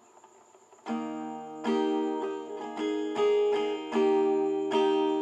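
Fender DG-7 acoustic guitar strummed in chords. The strumming starts about a second in, after a short hush, and the chords ring on between the strokes.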